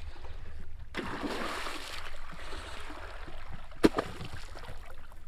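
A hooked barramundi thrashing and splashing at the surface beside the boat, with water sloshing for several seconds and one sharp knock about four seconds in.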